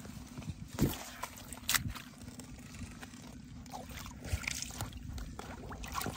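Shallow pond water splashing and sloshing as a hand scoops and slaps at it and legs wade through it, with two sharper splashes in the first two seconds.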